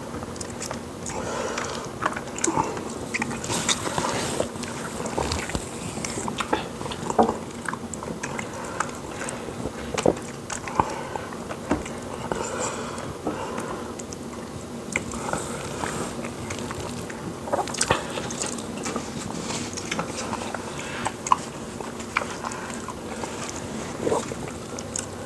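Close-miked eating: chewing of fufu and meat with soup, full of small wet mouth clicks and smacks.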